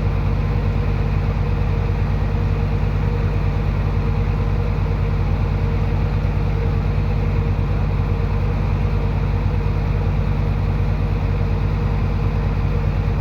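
Diesel engine of heavy earthmoving equipment running steadily at idle with a deep, even hum.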